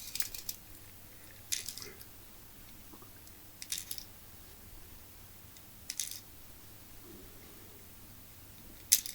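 Cheap BB pistol being handled: short scattered clicks and rattles every second or two, with one sharper, louder snap near the end.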